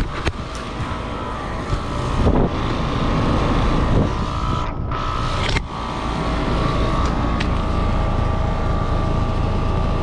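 Outdoor air-conditioner condenser unit running, a steady fan and compressor hum with a constant tone, growing louder about two seconds in.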